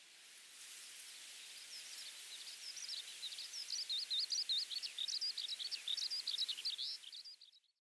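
A small songbird's rapid twittering song over a steady outdoor hiss of ambience, the song building from about two seconds in and fading out near the end.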